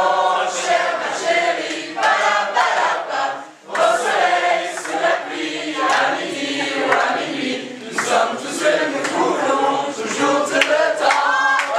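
A group of men and women singing a song together, with a short break between lines about three and a half seconds in.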